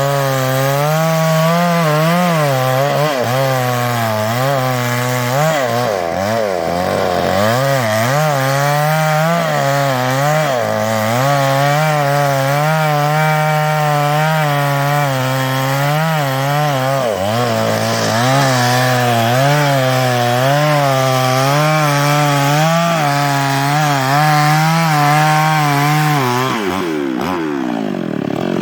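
New West 588 two-stroke chainsaw cutting into a teak trunk, the engine's pitch wavering up and down as the chain bites into the wood. Its speed sags briefly a few times, and near the end it drops away as the throttle comes off.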